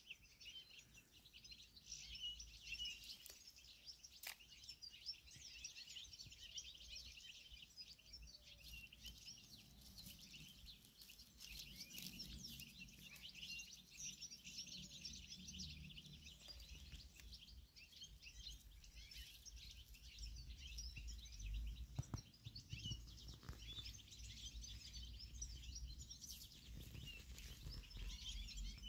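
Faint, continuous chorus of many small birds chirping and twittering, with a low rumble underneath and a few brief clicks.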